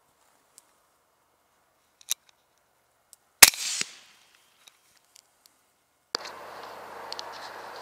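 A single rifle shot fired at a feral hog, one sharp crack with a short echoing tail, about three and a half seconds in, preceded by a faint click. Near the end a steady rushing noise starts abruptly.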